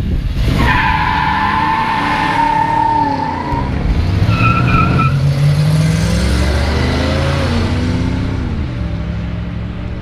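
Pontiac Firebirds launching in a drag race: tyres squeal for about three seconds from the start, with a second shorter squeal about four seconds in. Over it the engines run hard, rising in pitch and dropping back twice as the cars accelerate and shift, passing close by.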